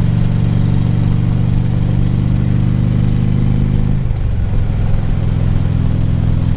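Harley-Davidson V-twin touring motorcycle engine running at road speed. About four seconds in, its note slides down and then settles steady at a lower pitch.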